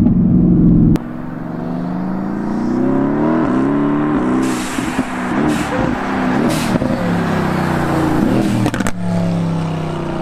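Mercedes-AMG GT's twin-turbo V8 engine, heard from inside the cabin for about a second, then from outside as the car is driven hard, revving up and down several times.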